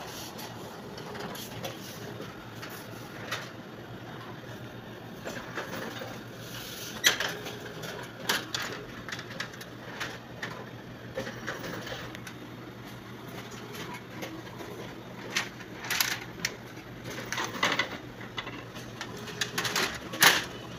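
Scattered sharp clicks and knocks as the right-side cover and latches of a Canon imageRUNNER office copier are handled by hand, opened and pushed shut to clear a paper jam. The loudest come about seven seconds in and near the end. A steady low hum from the copier runs underneath.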